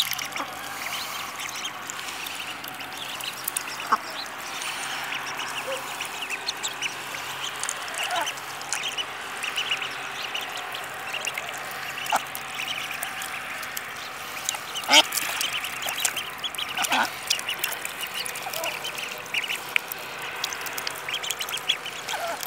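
Three-week-old ducklings peeping continuously as they peck at scattered rice, with a few louder duck calls now and then.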